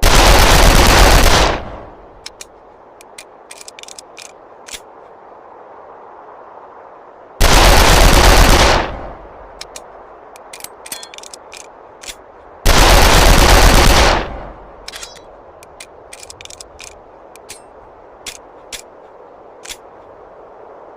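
Mauser C96 pistol gunfire sound effect: three loud blasts, each lasting about a second and a half, each followed by a scatter of light clicks.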